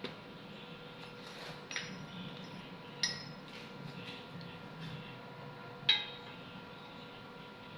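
Sharp metallic clinks and taps of metal pieces being handled or struck during welding work, three of them standing out, the loudest about six seconds in, over a faint steady hum.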